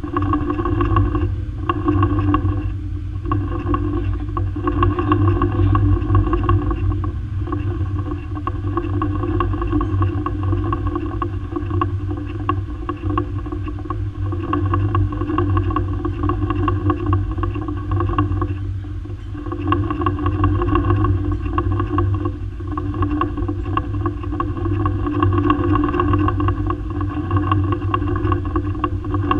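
Machinery running steadily: a strong low hum with steady higher tones above it, wavering in level and dipping briefly a few times.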